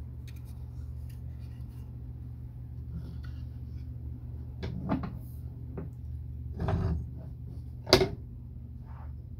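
Wooden block being handled and set down on a wooden workbench: a few dull knocks and a brief scrape, then one sharp wooden knock, the loudest, about eight seconds in, over a steady low hum.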